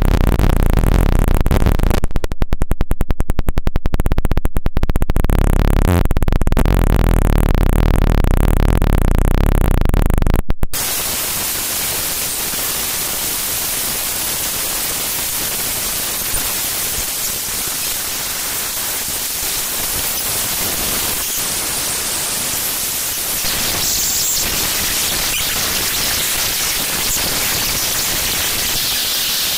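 Raw Oracle database files with their sample schemas played directly as audio: harsh digital noise. For about the first ten seconds it is a loud buzz with stretches of fast, even stuttering pulses, then it switches suddenly to a steady hiss like static.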